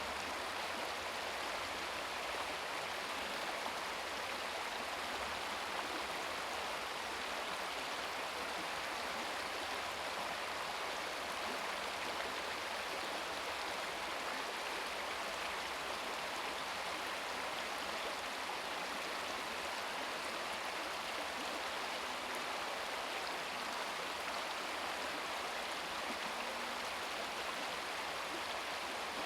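Babbling brook: shallow stream water running and splashing over rocks in a steady, even rush.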